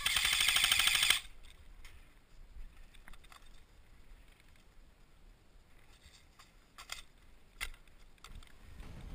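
Airsoft gun firing one rapid full-auto burst of about a second, loud and close, followed by a few faint single snaps of shots or pellet hits later on.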